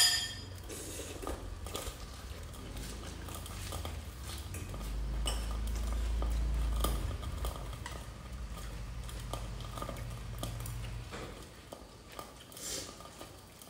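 Metal cutlery clinking and scraping against ceramic bowls while eating, with a sharp clink right at the start and scattered lighter clicks after. A low rumble rises and falls about five seconds in and lasts roughly two seconds.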